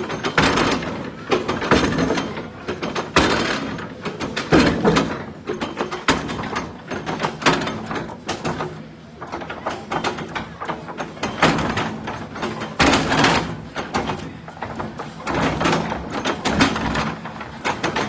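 Tracked excavator's diesel engine running under repeated heavy thuds and clattering as its bucket pounds and drops broken concrete and rubble.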